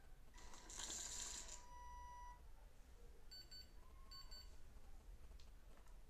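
A small DC motor whirs for about two seconds as it drives a rack-and-pinion sliding door open. A piezo buzzer then gives two quick pairs of short high beeps, its signal that the door is open.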